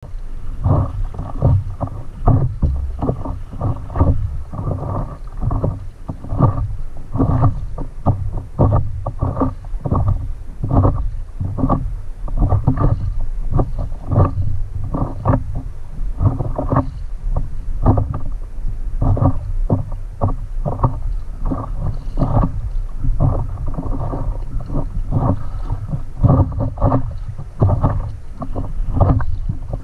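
Wind buffeting the microphone in rapid, irregular gusts over a steady low rumble, with water lapping and splashing against a stand-up paddleboard on slightly choppy water.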